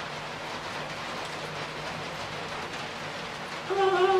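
Steady hiss of thunderstorm rain. Near the end a woman's voice comes in with a long, wavering hum.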